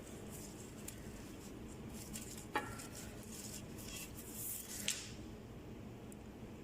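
Light handling noises: a few soft clicks and a brief rustle of small objects being moved, with two sharper clicks about two and a half and five seconds in, over a steady low room hum.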